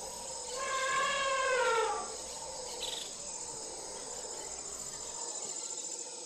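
Crickets chirping steadily in a jungle ambience. Over them comes a single drawn-out animal call, starting about half a second in and falling in pitch at its end.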